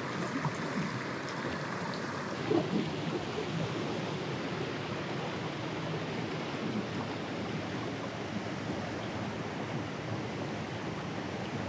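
Shallow mountain stream rushing steadily over rocks.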